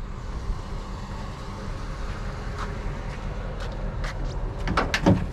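Truck engine idling with a steady low rumble, and a brief louder sound near the end.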